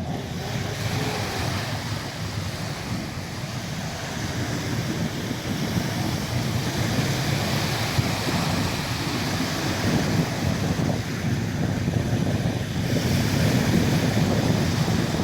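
Steady wind buffeting the microphone over a rush of sea water, growing a little louder near the end.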